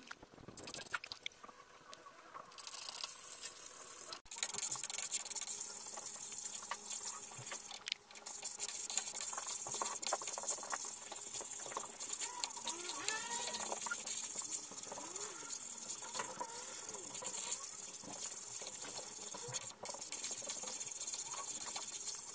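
Coconut cream frying down into latik in a pan: the curds bubble and sizzle in the coconut oil they have rendered out, with a steady hiss and many small crackles, while a spoon stirs through them. The sizzle is quieter for the first couple of seconds.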